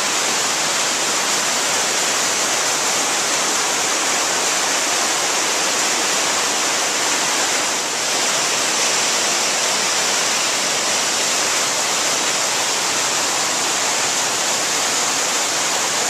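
Waterfall cascading over rocks on a mountain creek: a steady, unbroken rush of water.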